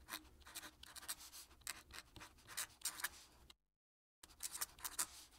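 Faint scratching of a fountain pen nib on paper in quick cursive strokes, each stroke a short rasp. The sound cuts out completely for about half a second past the middle, then the strokes resume.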